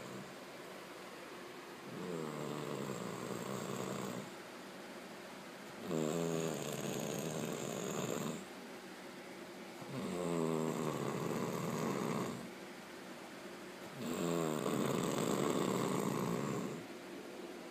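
A dog snoring in an even rhythm: four long snores, each about two seconds, coming roughly every four seconds with quieter breathing gaps between.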